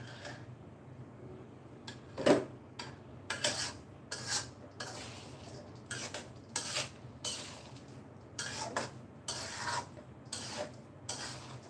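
A metal spatula scrapes and stirs thick rice in a metal wok in repeated, irregular strokes, with one louder clank about two seconds in.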